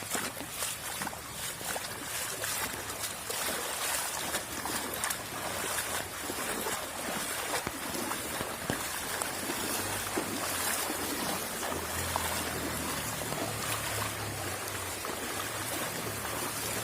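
Floodwater running and splashing steadily, a continuous rushing noise with many small splashes. A low hum joins about ten seconds in.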